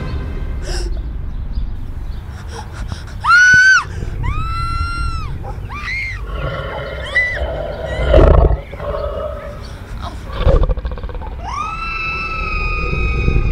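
Sound-effect dragon screeches: a string of high, arching shrieks, the first the loudest, then a long drawn-out screech near the end, over a low rumble. Two heavy thuds come in between.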